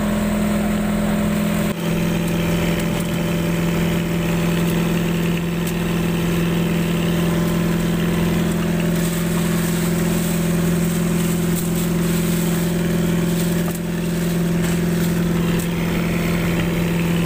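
Motorised outrigger boat (bangka) engine running steadily, its pitch shifting slightly about two seconds in.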